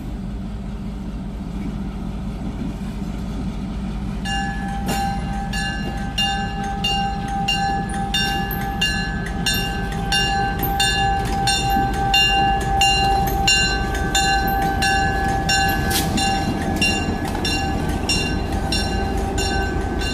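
Diesel locomotive's engine rumbling as it rolls slowly past. About four seconds in, a grade-crossing bell starts ringing steadily, about two strikes a second.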